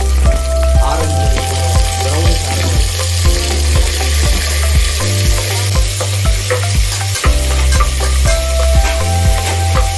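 Food frying in hot oil in a pan, with a steady sizzle and frequent clicks of a utensil stirring it. Under it runs background music with a strong bass line that changes notes in steps.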